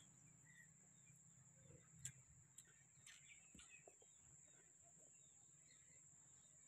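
Near silence: faint outdoor ambience with a steady thin high-pitched tone, a few faint chirps and a faint click about two seconds in.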